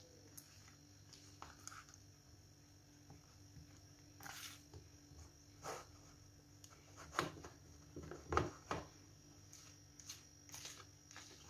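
A spoon stirring thick carrot cake batter in a bowl by hand: faint, irregular scrapes and wet squishes, with a few louder strokes about seven to nine seconds in.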